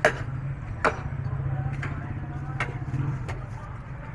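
Heavy cleaver chopping buffalo trotter bone on a wooden chopping block: two hard strikes in the first second, then a few lighter knocks, over a steady low hum.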